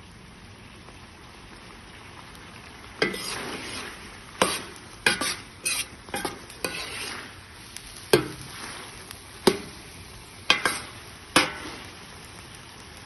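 Ground meat frying in a metal pan, sizzling steadily, while a metal spoon stirs it, scraping and clinking against the pan about eight times from about three seconds in.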